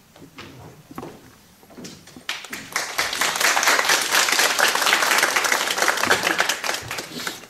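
Audience applauding: a few scattered claps at first, swelling into full, dense applause a little over two seconds in and dying away near the end.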